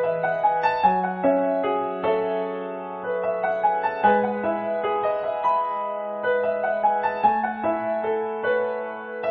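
Background piano music: a gentle melody of quick notes over low notes that change every second or two.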